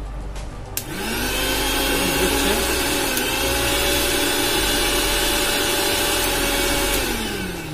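A Prestige 500-watt mixer grinder's motor, with no jar fitted, clicks on about a second in and spins up to a loud, steady whine. Its pitch wavers briefly about three seconds in, and near the end it is switched off and winds down. It runs freely on a newly fitted overload switch, a sign the repair has worked.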